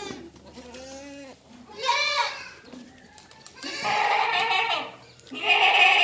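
Goats bleating, four separate calls at different pitches, the first lower and fainter, the last the loudest.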